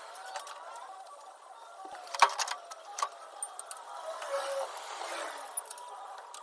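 Scattered metallic clicks and clinks of tools and parts, with one sharp knock a little over two seconds in and a lighter one about a second later.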